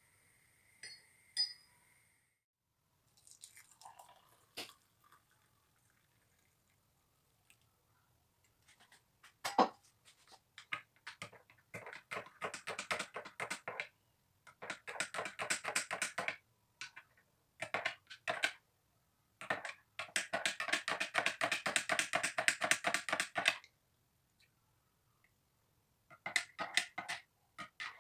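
Kitchen utensil work: rapid scraping or clinking strokes, several a second, in bursts of one to a few seconds. The longest burst runs about four seconds before stopping abruptly.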